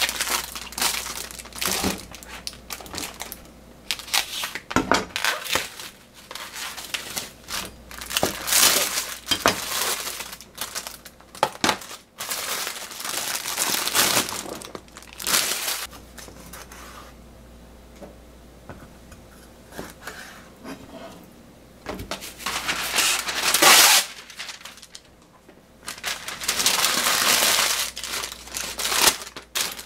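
Plastic food packaging crinkling and rustling in irregular bursts, some short and some lasting a second or two, as a bag of shimeji mushrooms is handled and emptied into a plastic colander. Now and then there is a sharp click or knock.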